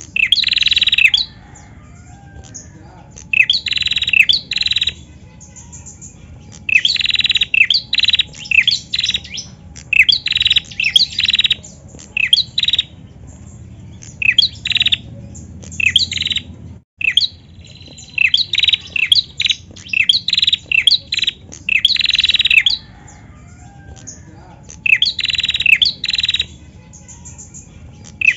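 Female prenjak, a small rufous-headed songbird, calling in repeated bursts of sharp, high chirps. Each burst lasts about one to two seconds, with short pauses between.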